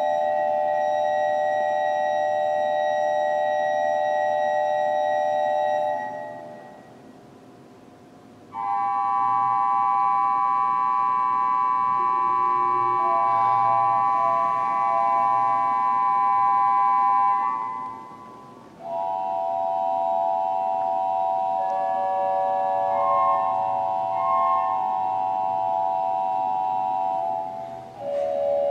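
Organ playing slow, long-held chords, each sustained unchanging for several seconds. The sound dies away in a gap of about two seconds some six seconds in, then dips briefly twice more as the chords change.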